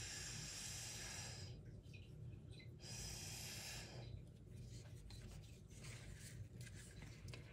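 Breath blown hard through a drinking straw to push wet pour paint across a rock: an airy hiss in two long puffs of about a second or more each, then several shorter, fainter puffs.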